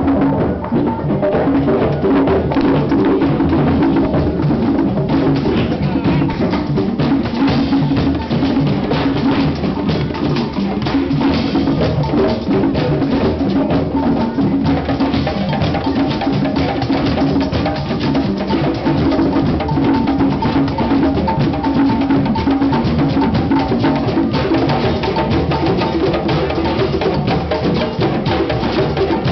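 A drum circle of several hand drums, congas among them, played together in a fast, steady rhythm of dense, overlapping strokes.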